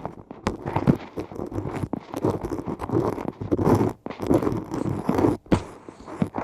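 Close-miked ear-cleaning sounds: an ear pick scraping and crackling against the inside of an ear canal in quick, irregular strokes with sharp little clicks.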